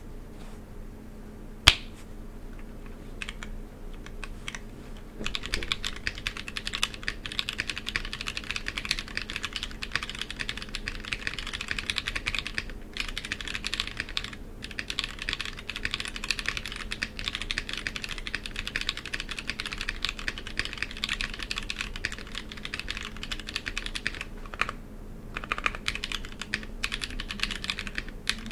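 Typing on a custom 60% mechanical keyboard with lubed Holy Trash Panda tactile switches on a carbon-fibre plate in a foam-filled Klippe T case, under GMK keycaps. A single sharp knock comes near two seconds in, then a few scattered keystrokes. Fast continuous typing starts about five seconds in and pauses briefly near the end before resuming.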